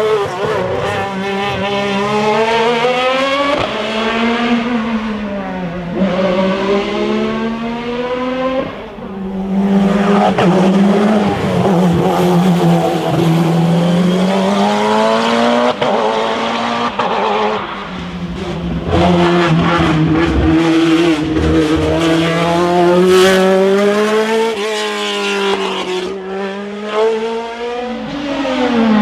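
Racing car engines at full load on a hillclimb, the pitch climbing and dropping again and again through gear changes and braking.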